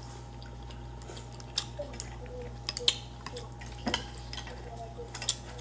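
Eating noodle soup with chopsticks and a spoon: scattered small clicks and taps of the utensils against a ceramic bowl, with faint wet mouth sounds of chewing.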